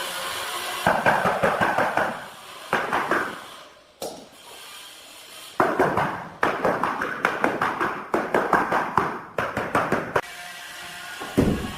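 Runs of quick tapping on tile, several taps a second with short pauses between runs, as tiles are tapped down into their mortar bed. One heavier, deeper knock near the end.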